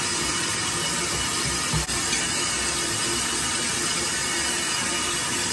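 Tap water running steadily into a glass sink basin while a wet cloth is rinsed and rubbed in it, with one small knock about two seconds in.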